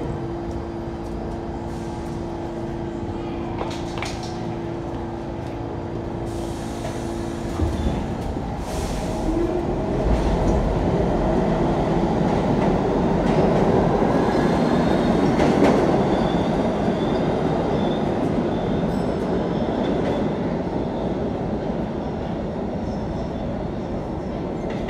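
New York City subway train standing in the station with a steady electrical hum, then pulling out. Its wheels and motors rumble louder as it accelerates past and fade as it leaves.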